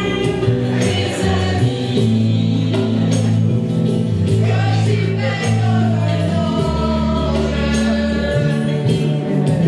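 Music with singing: a song with held bass notes and a sung melody.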